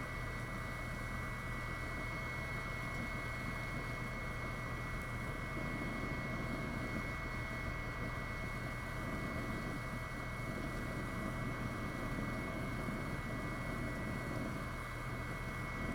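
Two BioLite campstoves running on high: a steady whir from their built-in combustion fans with a thin high whine. Under it is a rough, shifting rush from the burning pellet fires and the water boiling on top.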